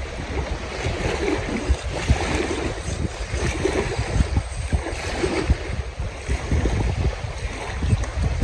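Gusty wind buffeting the microphone, with irregular low thumps over a steady rushing hiss.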